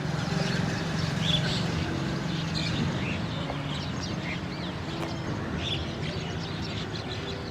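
Wild birds chirping and twittering in many short, quick calls, over a low steady hum.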